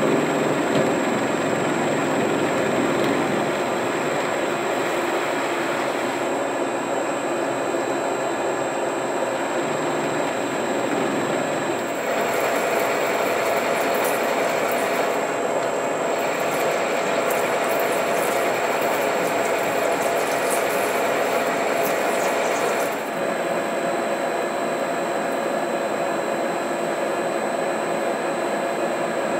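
Metal-working lathe running steadily, its spindle and gear drive whirring as a metal hub is turned. In the middle stretch, from about twelve to twenty-three seconds in, the cut adds a harsher, crackly high hiss.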